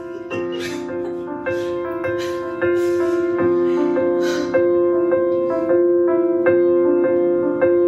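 Piano intro to a musical-theatre song: held chords that change every second or so and grow louder step by step.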